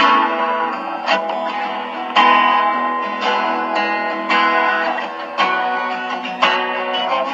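Acoustic guitar played in chords, a new chord struck about once a second and left ringing, with a thin sound lacking low bass.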